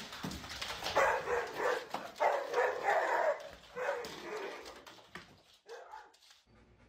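Dog barking, several short barks over the first four seconds, then fainter noises and quiet near the end.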